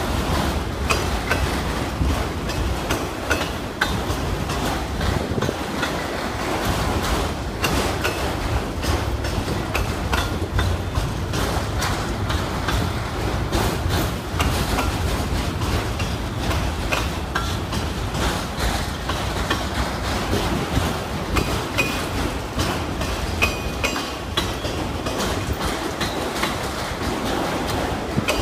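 Auto rack freight cars rolling by: a steady low rumble from the wheels, with a constant run of clicks and clacks over the rail joints.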